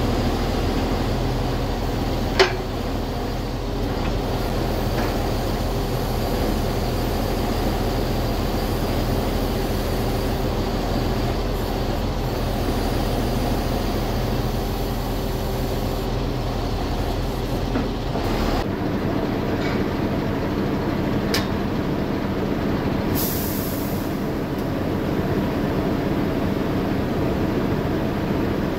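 Heavy diesel truck engine running steadily at idle. There is a sharp click early on, another about three-quarters in, and a brief high hiss shortly after.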